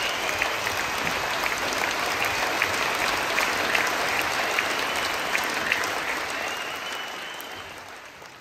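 Theatre audience applauding, dense steady clapping that fades out near the end.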